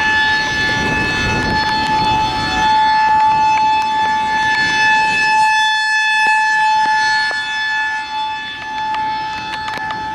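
Federal Signal 2001-SRNB outdoor warning siren sounding a steady high-pitched tone for a tornado warning, rising and falling in loudness as its horn rotates. Rain and wind noise sits underneath for the first half, then eases.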